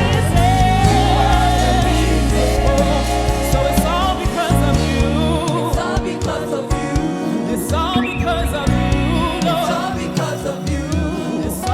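Live gospel worship music: voices singing a slow worship song over keyboard and bass accompaniment, with the bass dropping out for stretches in the middle.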